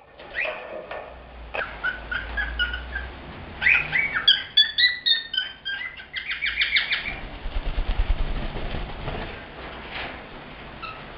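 Male cockatiel singing and calling in short pitched phrases, ending about seven seconds in with a fast run of about ten repeated notes.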